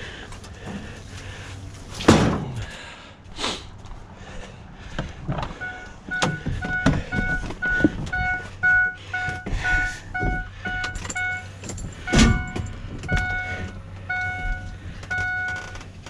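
Truck reversing alarm beeping steadily, about two beeps a second, starting about five and a half seconds in over a running engine. Two loud thumps, one near two seconds in and one near twelve.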